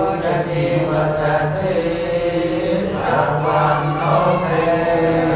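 Buddhist monks chanting together in unison, a recitation held mostly on one steady low pitch with changing vowel sounds, broken by a short pause about three seconds in.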